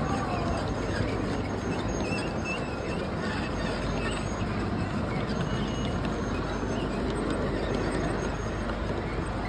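Large-scale model freight train rolling along its elevated track, a steady rumble of wheels on the rails, with a few faint squeaks about two to four seconds in.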